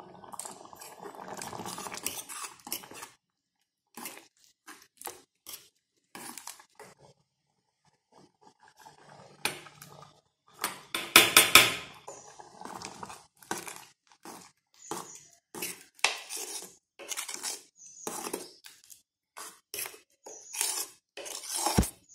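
Steel ladle clinking and scraping against an aluminium saucepan as a thick dal and bottle-gourd mixture is stirred, in many short strokes. About eleven seconds in comes a louder run of scraping as ground coconut masala is scraped from a bowl into the pot.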